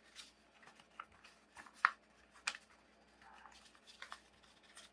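Origami paper crackling and rustling as fingers pinch and crease it: a few short, crisp crackles, the loudest a little under two seconds in.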